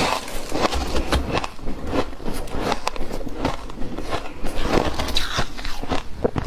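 Close-miked bites into dry, flaky white ice, a rapid irregular string of sharp crunches with no pauses.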